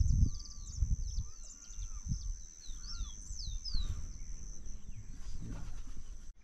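Wild birds calling with many short chirps that sweep up and down, over wind rumbling on the microphone, with a steady high-pitched whine running under it.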